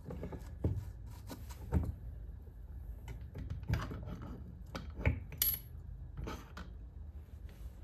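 Metal engine parts clinking and knocking against each other and the engine case in scattered sharp taps, as a meshed pair of gear shafts is worked out of a KTM 450 EXC engine case.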